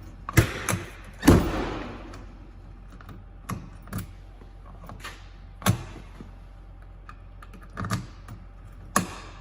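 Scattered clicks and knocks of hand work on a truck door and its lock hardware, about a dozen sharp ones at uneven intervals, the loudest a clunk about a second in.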